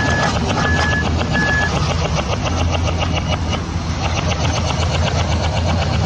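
Excavator running with a steady low hum and a fast, even clatter. A warning alarm beeps three times, about one beep every 0.7 s, and stops before two seconds in.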